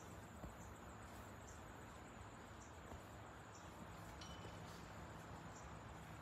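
Faint, steady outdoor background noise with a low hum, soft high ticks about once a second and a brief faint high beep a little past the middle.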